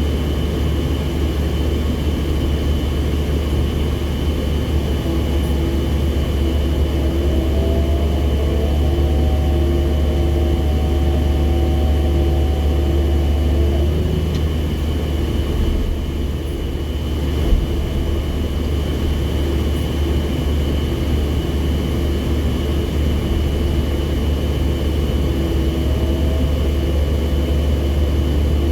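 SANY SCC1500 crawler crane's diesel engine running steadily with a heavy low rumble. A whine rises in pitch about seven seconds in, holds for several seconds and stops around fourteen seconds, then comes back briefly near the end. A single sharp knock about seventeen seconds in.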